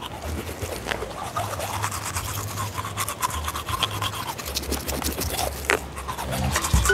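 Toothbrushes scrubbing teeth, a rapid run of short scratchy bristle strokes, the brushes loaded with a wet herbal tooth powder.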